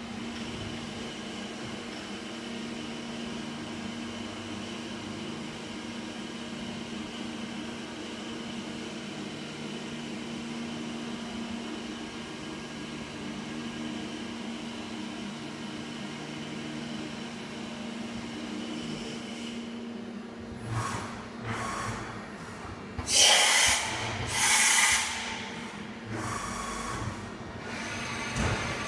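AXA VARIO vertical machining center running inside its enclosure, a steady hum with a constant tone as the spindle works in a haze of coolant. About two-thirds of the way through comes a run of loud short hissing bursts, the two loudest close together.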